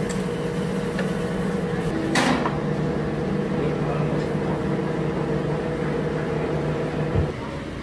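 A machine hums steadily and cuts off suddenly near the end, with one short, sharp noise about two seconds in.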